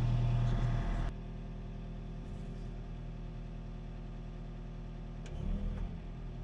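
Mini excavator's engine running. About a second in, the sound drops abruptly to a quieter steady hum, and the engine note shifts briefly near the end.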